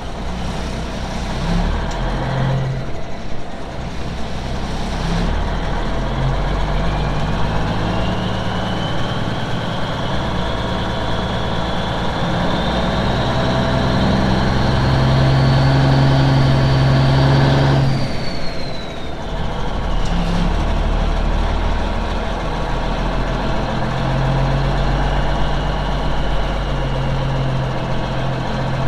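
Semi truck's diesel engine heard from inside the cab, running as the truck moves off slowly. A whine climbs gradually with the engine getting louder, then falls away about 18 seconds in as the engine drops back, and it runs steadily after that.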